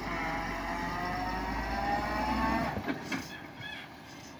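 Heavy tipper truck's diesel engine pulling under load, a deep rumble with a whine slowly rising in pitch. It drops off sharply about three seconds in, followed by a few clacks.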